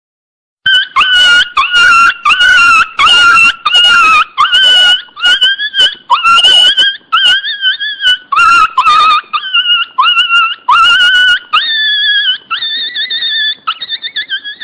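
Newborn Pinscher puppy, about ten days old, crying loudly: a rapid run of high-pitched squealing cries, each about half a second long and bending up and down in pitch. The cries start about half a second in and turn longer and higher near the end.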